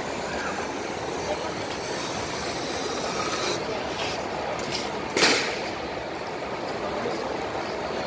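Steady din of a crowded exhibition hall: many visitors' voices blending into a continuous background noise. A single sharp knock or clatter stands out about five seconds in.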